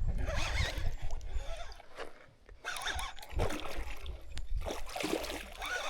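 Irregular splashing and sloshing of water as a hooked Murray cod is fought close in, with rustling handling noise; it briefly goes almost quiet about two seconds in.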